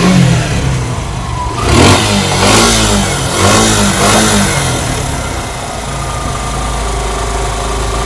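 Suzuki Gixxer SF single-cylinder engine blipped a few times about two seconds in, then settling to a steady idle. It carries the tak-tak-tak tapping that the mechanic puts down to a faulty cam chain tensioner.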